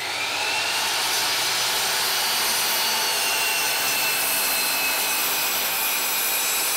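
Kobalt miter saw running and cutting through a pressure-treated 4x4 post: a steady motor whine over a dense rasping hiss of blade in wood. The whine dips slightly in pitch midway through the cut and climbs again near the end.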